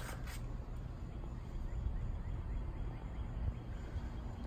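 One or two footsteps on concrete right at the start, then outdoor background made up mostly of a low, uneven rumble.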